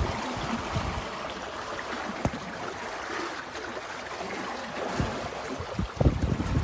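Water rushing and splashing in the wake of a MacGregor 26X sailboat under sail, with no engine running. Gusts of wind buffet the microphone near the end.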